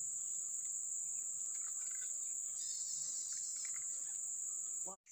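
Steady, high-pitched drone of a tropical insect chorus, with a few faint chirps a little past halfway.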